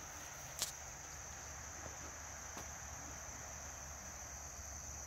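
Faint, steady high-pitched trilling of field insects, with one sharp tap about half a second in.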